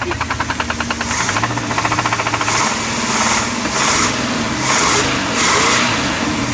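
1990 Crusader 454 marine big-block V8 running with a fast, even knock that the owner takes for rod knock. It gets louder in several short surges from about a second in.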